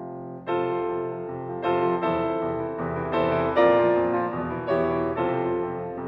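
Steinway D concert grand piano played solo: soft held notes, then from about half a second in a series of loud struck chords, one every second or so, each ringing on into the next.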